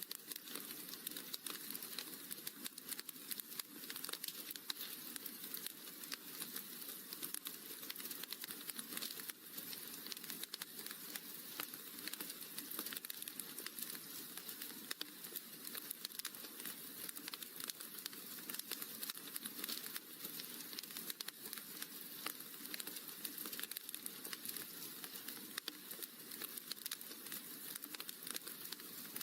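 Wood fire crackling in a fireplace: a dense, unbroken run of small pops and clicks over a steady hiss.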